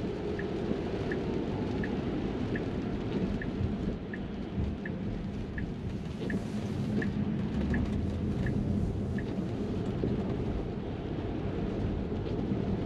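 Cabin noise inside a Tesla electric car driving in the rain: a steady low rumble of tyres on the wet road, with rain on the glass roof. A light ticking, about one and a half ticks a second, runs until about nine seconds in and fits the car's turn signal.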